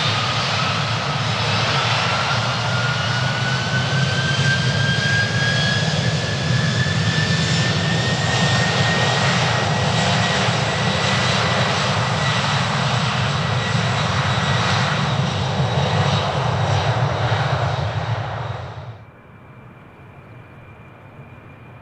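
Boeing VC-25A's four General Electric CF6 turbofans running at high power, their whine rising in pitch as the engines spool up for the takeoff roll and then holding steady. About 19 s in the sound drops abruptly to a much quieter, more distant steady engine whine.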